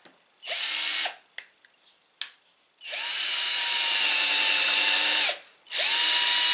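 Cordless drill boring into a block of wood in three runs: a short burst about half a second in, a longer run of about two and a half seconds, then another starting near the end. The motor's whine climbs as each run starts and drops as it stops, with a single sharp click between the first two.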